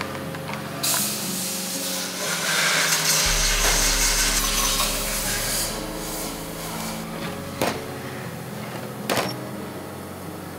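Background music with held tones over a harsh hissing noise of factory work lasting about five seconds, followed by two sharp knocks.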